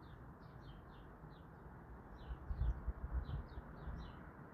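A small bird chirping: short high notes in quick runs of two or three, over a steady low outdoor background hiss. A brief low rumble about two to three seconds in.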